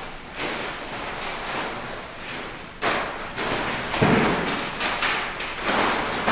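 Large fabric and nylon props being swung, dragged and dropped on a hard floor: rustling and flapping cloth with a few sudden thuds. The loudest come about three and four seconds in.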